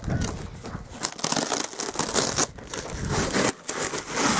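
Plastic-wrapped packaging crinkling and rustling in irregular bursts as it is handled and pulled open.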